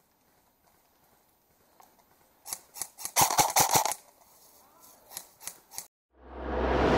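Airsoft gun firing in sharp snaps: two single shots, a rapid burst of about eight, then three evenly spaced single shots. A swell of music rises near the end.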